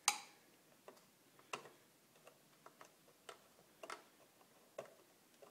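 Faint, irregular small clicks and ticks of wire leads and terminals being handled and pushed into place in a mini lathe's control box, with the sharpest click right at the start.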